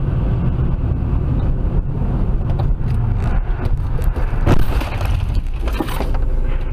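Car driving on a wet road, heard from inside the cabin: a steady low rumble of road and engine noise. A loud thump comes about four and a half seconds in, and a lighter one just before the end.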